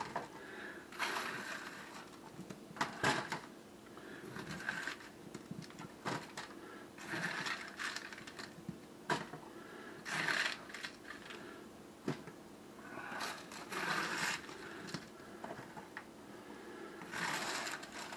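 A spatula scraping and pushing roasted potato cubes across a foil-lined sheet pan, in short crinkly scrapes with light clatter every second or so as the potatoes are moved over into an aluminium foil pan.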